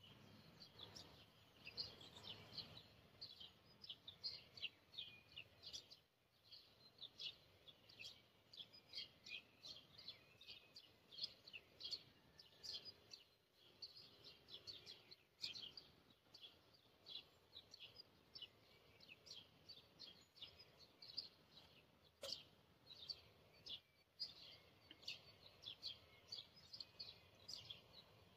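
Small birds chirping faintly in quick, irregular runs of short, high calls.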